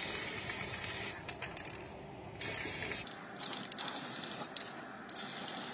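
Aerosol spray can of grey primer hissing in a series of short bursts with brief pauses between them.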